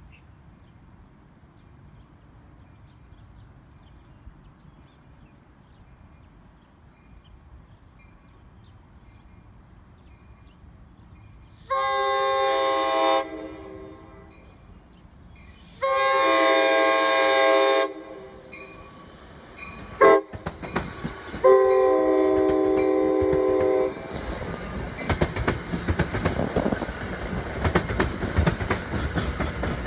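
Nathan K5LA five-chime air horn on an NJ Transit Comet V cab car, unrestricted, sounding three blasts, the last the longest, as the train approaches. The train then rolls past with rumbling wheels and clickety-clack over rail joints.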